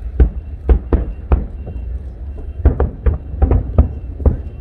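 Fireworks bursting in a quick, irregular series of loud bangs, about ten in under five seconds, over a steady deep rumble.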